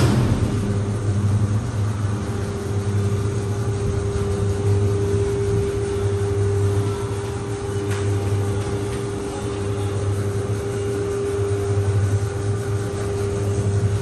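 Commercial washing machine running, its motor and drum giving a steady low rumble with a constant whine over it.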